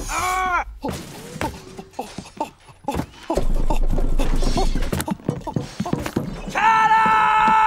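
Cartoon sound effects: a short wavering cry, then a rapid run of knocks, clatters and thumps as clothes and buttons are flung out of a drawer, ending with a steady high-pitched cry held for about a second.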